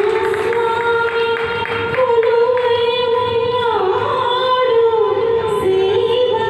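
A woman singing into a microphone through a PA system, holding long sustained notes with a slide down in pitch about four seconds in.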